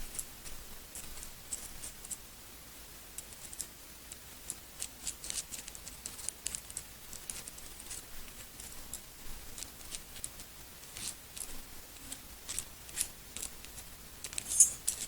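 Small steel parts of a CZ 75 SP-01 pistol clicking and scraping as the right-side safety lever is fiddled into its groove on the frame: light, irregular ticks, with a louder click near the end.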